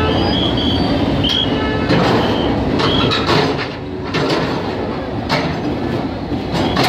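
Backhoe loader's diesel engine running while its bucket tears down a corrugated metal roof sheet: metal squealing and scraping, with several sharp crashes as the sheeting comes down.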